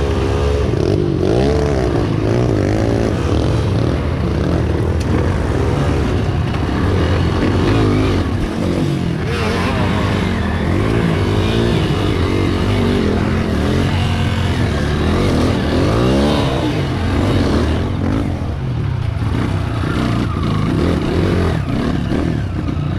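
Honda CRF230F dirt bike's single-cylinder four-stroke engine running hard, its pitch rising and falling again and again as the throttle is opened and closed through the ride.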